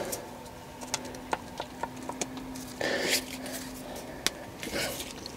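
Scattered small metallic clicks and taps of a screwdriver working at the very tight retaining screws of a Bosch K-Jetronic fuel distributor, the blade slipping in the screw heads, with two short hissy breaths.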